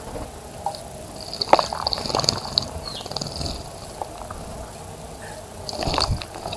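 Small birds splashing in a bird bath in two short flurries, about a second and a half in and again near the end, with a few brief high chirps.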